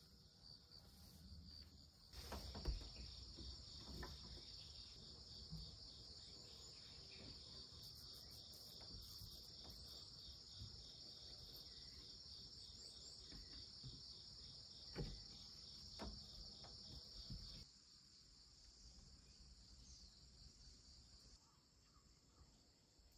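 Crickets chirring steadily in a high, finely pulsing trill. Beneath it runs a faint low rumble that drops away about eighteen seconds in, and there are a few soft knocks, the loudest a few seconds in.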